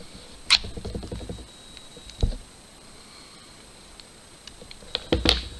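Handling clicks and knocks of a multi-bit screwdriver and its steel bits being swapped and test-fitted: one sharp click about half a second in, a few soft knocks, another knock past two seconds, and a quick cluster of clicks near the end.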